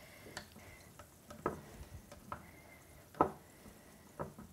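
A stick crushing raspberries in a glass carafe of sparkling water, its end tapping the glass in a few light, scattered knocks, the loudest about three seconds in.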